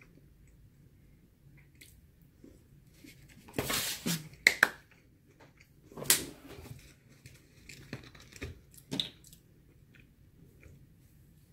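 Eating sounds: a mouthful being chewed, with a few sharp knocks and rustles of a plastic takeout container and fork being handled and set down, loudest about four and six seconds in.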